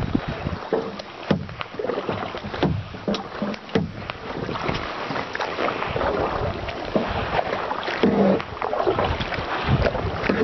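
Water splashing and sloshing around an inflatable kayak as it is paddled, coming in uneven surges, with wind buffeting the microphone.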